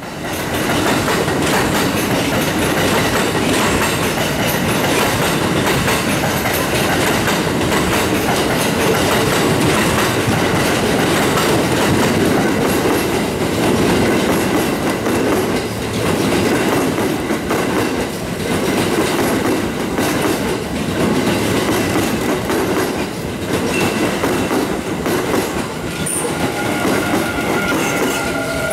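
Electric commuter train rolling slowly past close by: a steady rumble of traction and running gear, with wheels clattering over rail joints and points.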